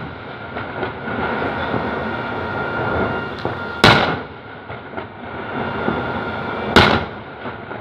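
Daytime fireworks salute: a steady crackling rattle of ground-level fireworks, broken by two loud bangs of shells bursting overhead, about four seconds in and again about three seconds later.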